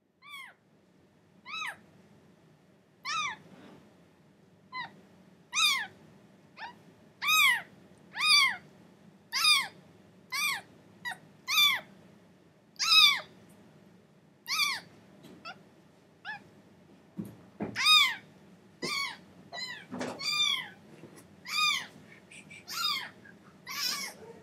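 A very young kitten meowing over and over, about twenty high-pitched cries roughly one a second, each rising and falling in pitch. Two brief low bumps come in the second half.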